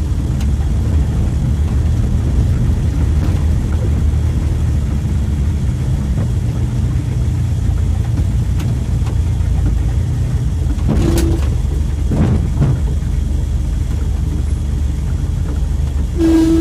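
Mitsubishi L300 pickup's engine running under way, heard from inside the cab as a steady low drone. Two brief sharp sounds cut through it, about eleven seconds in and again near the end.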